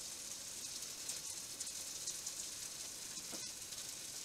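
Pan bread with melting emmental sizzling in small frying pans on a gas hob: a soft, steady, high hiss with a faint tick about three seconds in.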